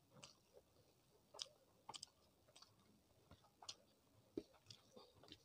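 Quiet close-up eating sounds of rice and curry eaten by hand: soft chewing with scattered sharp, wet mouth clicks, and fingers working rice on the plate. A sharper knock about four seconds in is the loudest sound.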